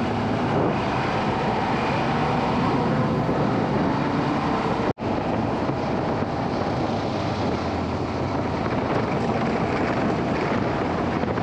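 UTV driving off-road, its engine and the ride making a steady, dense rumble. The sound drops out for an instant about five seconds in.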